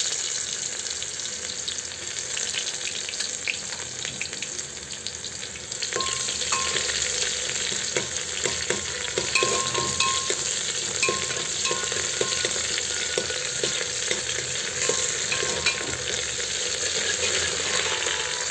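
Onion frying in hot oil with cumin and carom seeds in a pressure cooker pot, a steady sizzle. From about six seconds in, a spoon clicks and scrapes against the pot as it is stirred.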